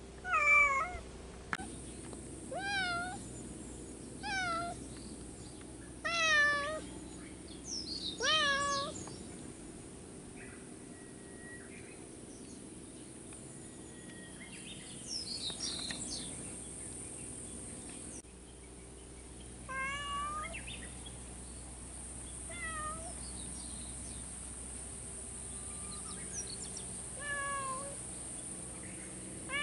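Two cats meowing: five loud, drawn-out meows about every two seconds over the first nine seconds, then fainter meows at longer gaps.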